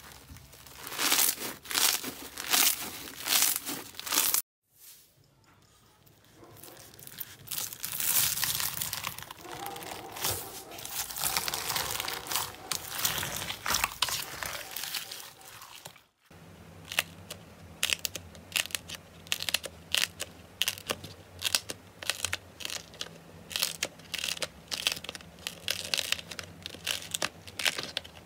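Hands squeezing and kneading slime, giving rapid small sticky clicks and pops. The sound changes at two hard cuts: a brief drop to near silence about four seconds in, a steadier wet hiss while slime with foam beads is worked, then dense clicking again as thick orange slime is pulled apart.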